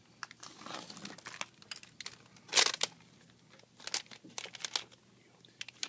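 Crinkling, crackling and tearing of thin plastic film and adhesive as an iPad screen part is handled and peeled: a string of short crackles with one louder rip about two and a half seconds in.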